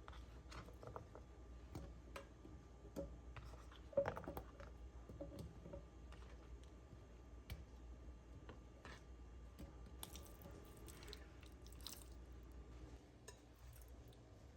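Quiet handling sounds in a kitchen: scattered light clicks and taps, a sharper knock about four seconds in, and a soft rustle around ten to twelve seconds.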